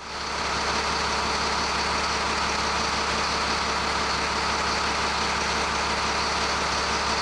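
Caterpillar 3126 inline-six diesel idling steadily, freshly swapped into the truck and running through one of its first starts.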